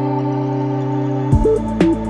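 Background music: held synth chords, then about a second in a beat comes in with a bass drop and quick hi-hat ticks.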